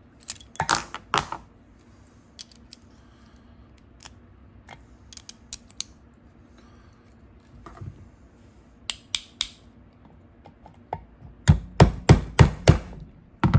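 Metal clicks and knocks of a socket being pushed and tapped onto the drive of a damaged 1/4-inch ratchet, with a quick run of six or seven louder knocks near the end. The socket won't seat because the quick-release detent ball is stuck out.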